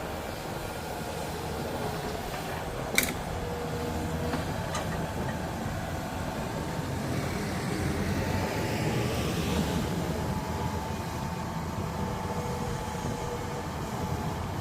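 Heavy diesel machinery running steadily at a bored-pile site, with a sharp metallic clank about three seconds in. The engine noise swells for a few seconds past the middle.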